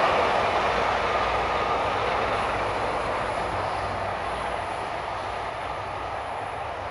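Passenger coaches of a steam-hauled train rolling past on the rails: a steady rumble of wheels on track that fades gradually as the train draws away.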